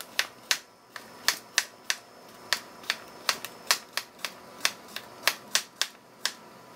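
Chef's knife slicing a white radish into thin rounds on a plastic cutting board: a sharp tap each time the blade goes through and strikes the board, about three a second.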